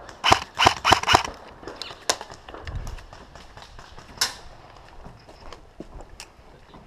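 A quick run of about five sharp cracks within the first second, then scattered single cracks and lighter clicks.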